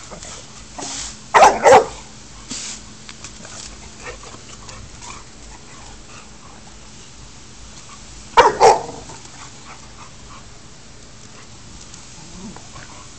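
Boxer dogs barking at play: two quick barks about a second in and two more about eight seconds in.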